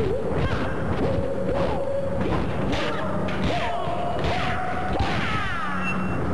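Punch and kick impacts in a staged kung fu fight, a hit every half second or so, over a couple of long held tones that fall away near the end.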